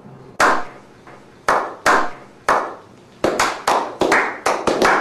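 Slow clap by a small group of men: single hand claps about a second apart at first, then quickening into faster applause from about three seconds in, each clap echoing.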